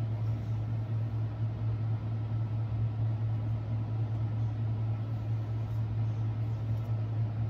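Steady low hum with a faint even hiss behind it: constant background room noise.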